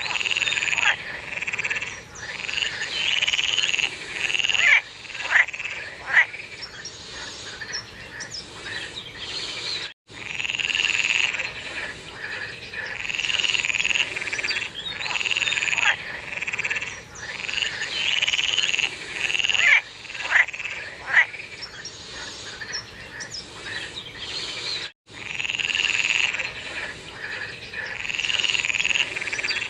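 A chorus of frogs calling in repeated overlapping bouts, with a few sharper, louder calls standing out. The chorus cuts out for an instant twice, about ten and twenty-five seconds in.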